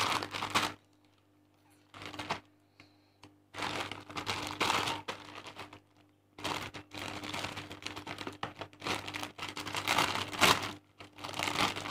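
Clear plastic packet crinkling and rustling in the hands as it is opened, in irregular bursts with small clicks, the longest stretch running from about three and a half seconds in almost to the end.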